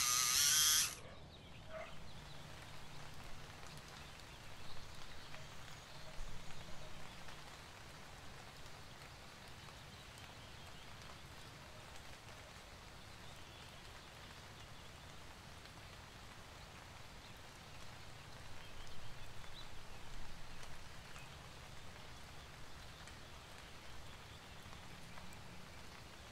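An electric pencil sharpener grinds and cuts off suddenly within the first second. After that there is a quiet, steady low hum, with faint pencil scratching on wood swelling a little twice.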